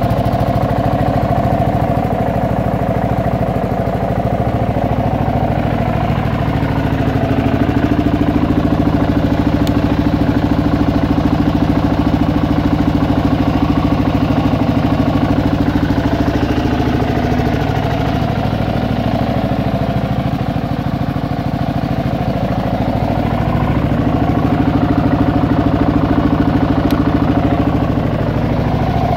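Kawasaki KLR650's single-cylinder four-stroke engine idling steadily as it warms up after a cold start.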